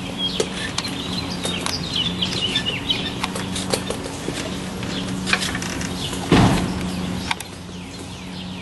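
Hard clicks and taps of footsteps on roof slates, with small birds chirping about one to three seconds in over a low steady hum. A louder thump comes about six seconds in.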